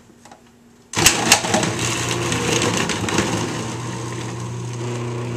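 Food processor motor switching on abruptly about a second in and running with a steady hum, its grating disc shredding a stick of cold butter pushed down the feed tube.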